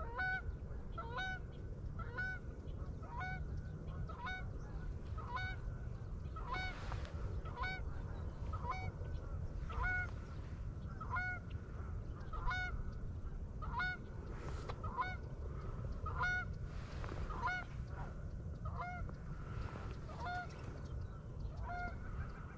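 A flock of geese honking overhead, a steady run of short calls at about two a second.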